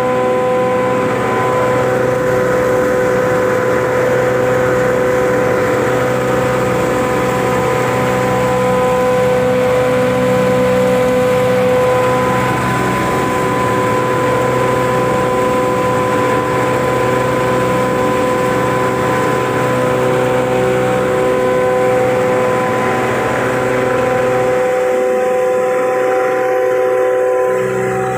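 Red chilli pulverizer grinder running: a loud, steady mechanical whine with a high held tone over a noisy hum. The lower part of the hum thins out for a couple of seconds near the end.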